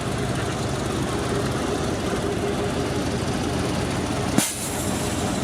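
Heavy truck diesel engine running steadily, from the crane trucks working the recovery. One sharp click comes about four and a half seconds in.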